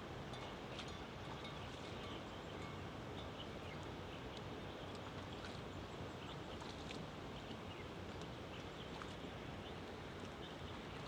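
Quiet countryside ambience heard while cycling: a steady hiss of wind and road noise, with faint, scattered high ticks and chirps throughout.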